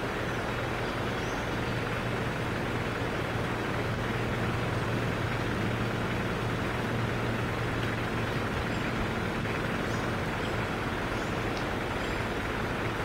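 A steady low mechanical hum over an even wash of noise, unchanging throughout.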